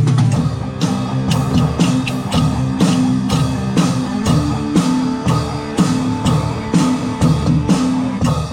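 Drum kit and electric guitar playing a rock riff together, the drums keeping a steady beat of about three strikes a second.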